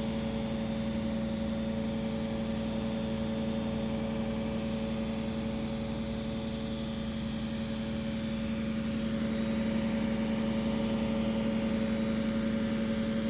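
Steady machine hum with a few constant tones, growing slightly louder partway through.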